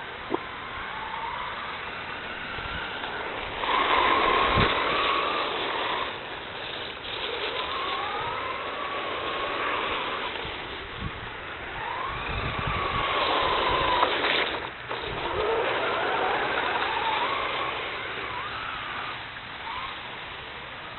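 A radio-controlled car's motor whining, its pitch gliding up and down again and again as the throttle is worked, over a steady hiss. The whine is loudest in two stretches, a few seconds in and again past the middle, and there is a sharp click just after the start.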